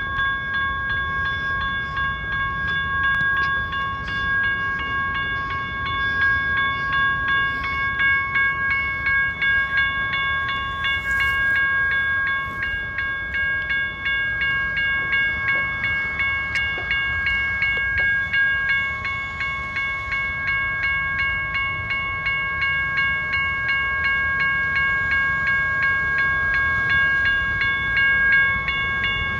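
A train passing, a steady low noise, with a high ringing of several steady tones over it that pulses quickly and evenly.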